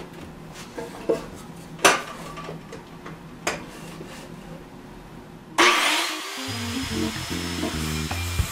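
A few light knocks and clicks of wooden framing pieces being handled on a plywood floor, the loudest a single knock about two seconds in. About two-thirds of the way through, background music starts suddenly and runs on.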